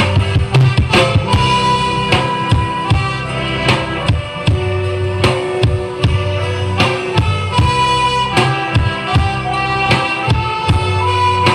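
Music with a drum-kit beat and strong bass, played back loud through a speaker system under a sound test, a subwoofer setup with bullet tweeters.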